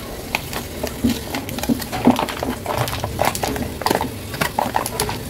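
Crimped aluminium foil lid crinkling and crackling as it is handled and peeled back off a bowl: a quick, irregular run of sharp crackles.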